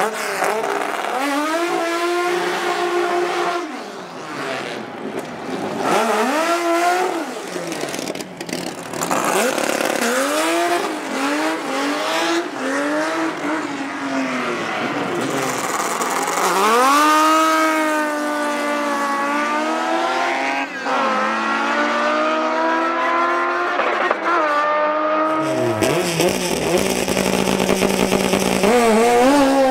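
Drag-racing car engines revving hard: several blips rising and falling in pitch, then a long pull that climbs, dips once and climbs again. Near the end it switches to a turbocharged dragster's engine running steadily.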